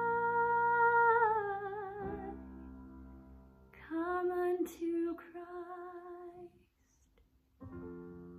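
A woman's solo voice holds the song's final note with vibrato over a sustained instrumental chord, then the accompaniment fades. A short, softer sung phrase follows. After a brief near-silent pause, the accompaniment plays a closing chord that dies away.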